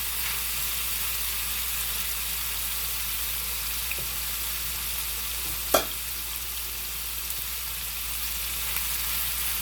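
Deer tenderloin sizzling steadily as it fries in a pan, with a faint tick about four seconds in and a single sharp knock just before six seconds.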